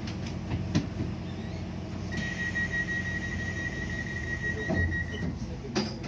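Interior of a Docklands Light Railway train standing at a platform: a steady low hum, with a flat, high electronic tone sounding for about three seconds in the middle and a couple of short knocks.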